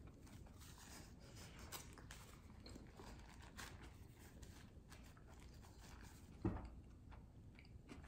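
Faint chewing and mouth sounds of someone eating a burger, with one soft thump about six and a half seconds in.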